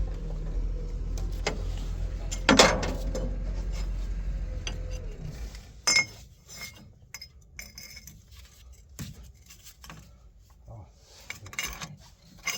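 Metal hand tools and wrenches clinking and clanking as they are handled against steel fittings, in scattered sharp knocks. A low steady hum runs underneath and stops a little after five seconds in.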